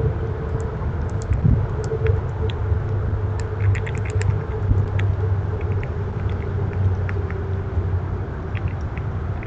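A steady low rumble with a faint steady hum, and a scattering of short, faint high ticks, thickest a little before the middle.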